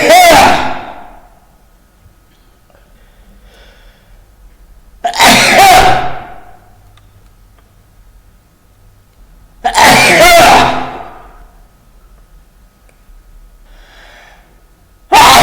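Loud human sneezes, one about every five seconds. Each is a sudden 'achoo' that fades over about a second, and a faint in-breath comes before the next one.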